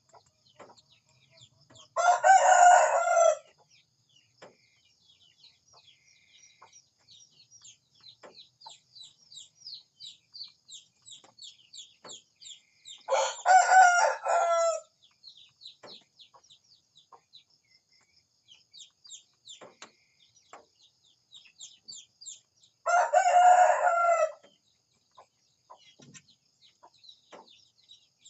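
Rooster crowing three times, about ten seconds apart, each crow lasting about a second and a half. Small birds chirp quickly and steadily in between.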